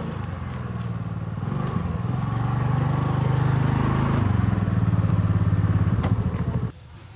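Small motor scooter engine running as the scooter rides up and slows to a stop, getting louder as it nears, then cut off suddenly near the end, with a single click just before.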